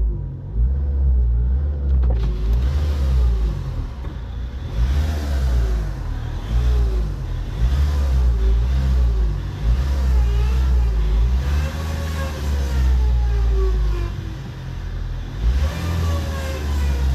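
2.0 TDCi diesel engine of a Ford Mondeo Mk4 running with a power steering whine that rises and falls in pitch over and over. The noise comes from air in the power steering fluid.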